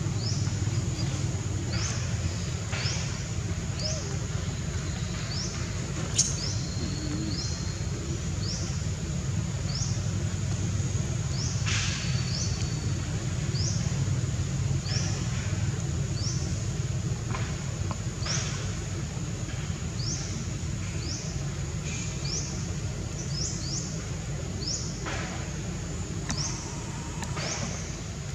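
Outdoor ambience: a short, high, rising chirp repeated about once a second over a steady low rumble, with one sharp click about six seconds in.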